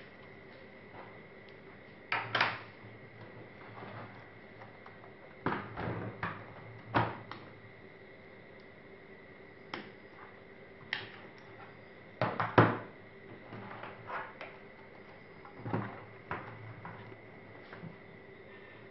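Plastic clicks and knocks of a laptop case being handled during disassembly, coming irregularly in small clusters, the loudest about two, seven and twelve seconds in. A faint steady high tone sits behind them.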